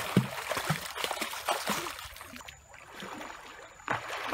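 Water splashing and sloshing as swimmers dive and kick in a shallow creek. The splashing drops away for a little over a second partway through, then picks up again near the end.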